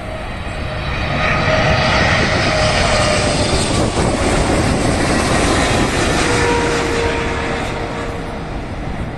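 Twin-engine Boeing 777 on final approach, gear down, passing low overhead. Its jet noise builds over the first couple of seconds, with whining tones that drop in pitch as it goes past, and then slowly fades.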